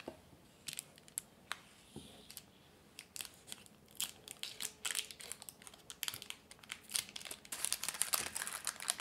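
Baking paper crinkling and crackling as it is peeled open from a block of set chocolate ganache. It starts as a few scattered crackles and grows denser and louder toward the end.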